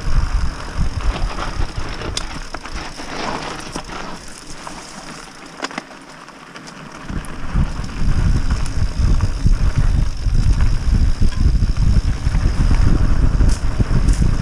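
Wind buffeting a GoPro's microphone on a mountain bike riding fast down dirt singletrack, with tyres crunching over dirt and stones and scattered clicks and rattles from the bike. The wind drops away for a few seconds near the middle, then comes back stronger.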